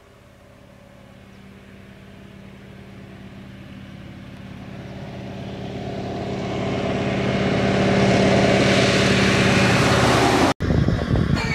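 An Antonov An-2's nine-cylinder radial piston engine and propeller in flight, a steady drone growing louder as the low-flying biplane approaches and passes close overhead. Near the end it cuts off abruptly and gives way to a closer, uneven engine sound.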